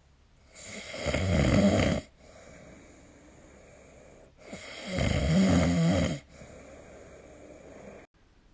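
A sleeping person snoring: two loud snores about four seconds apart, each lasting about a second and a half and followed by a softer, longer breath.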